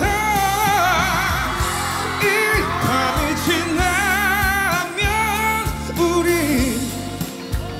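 A male singer performing a Korean rock ballad, holding long notes with wide vibrato over a band accompaniment.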